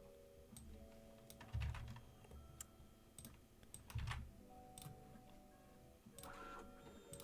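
Computer keyboard being typed on: scattered, irregular key clicks with pauses between them, the strongest about a second and a half in, around four seconds in and near the end. Faint sustained musical tones sit underneath.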